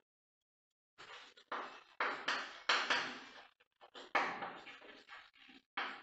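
Chalk writing on a chalkboard: an irregular run of short taps and scrapes, one for each stroke of the letters, starting after about a second of silence.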